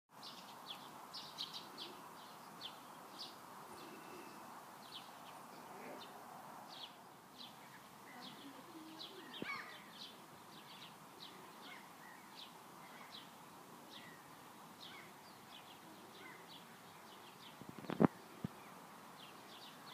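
Birds chirping: many short, high chirps throughout, over a faint outdoor background. A single sharp knock near the end is the loudest sound.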